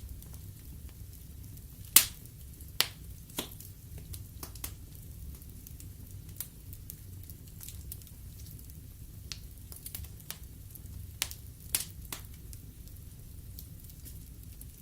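Log fire burning in a fireplace, crackling: irregular sharp pops and snaps over a low steady rumble. The loudest pop comes about two seconds in, with a few more strong ones shortly after and again near the end.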